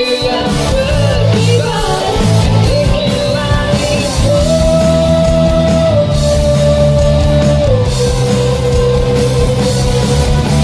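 Background rock music with guitar and a steady beat, carrying a long held melody line.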